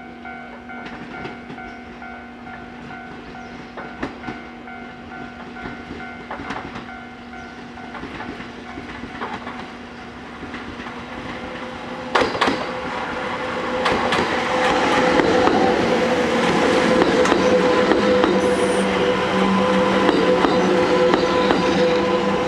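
A Kintetsu 22000 series electric train pulls into the station and passes close by. Its wheels click over rail joints and points, with a sharp clank about twelve seconds in, and the sound grows louder from about fourteen seconds as the cars go past.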